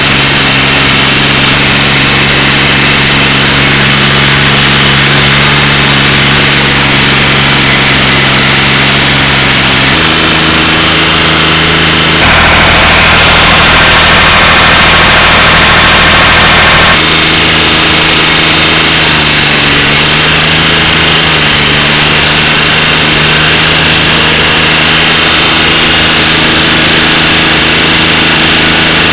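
Ford 3000 tractor's diesel engine running loud and steady after a long lay-up, its speed stepping up about ten seconds in and settling back down several seconds later.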